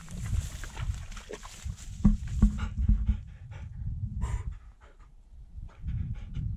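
A dog panting quickly close to the microphone, about four breaths a second, after splashing through a shallow creek in the first two seconds. A low rumble runs underneath, loudest in the first half.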